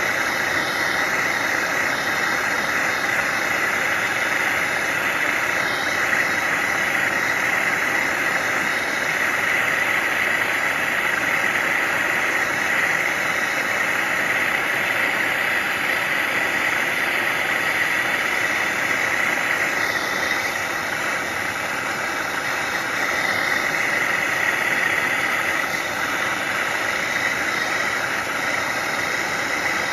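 MAPP gas torch on a hose burning with a steady hiss as its flame heats an aluminum coil joint for brazing.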